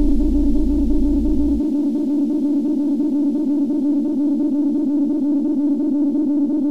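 Techno music: a held synthesizer tone with a quick wobble. The deep bass drops out about a second and a half in, leaving the synth on its own.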